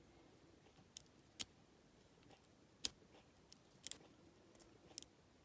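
Dimple flag pick and tensioner working inside a dimple lock: a handful of sharp metal clicks at irregular intervals, two of them close together just before the four-second mark.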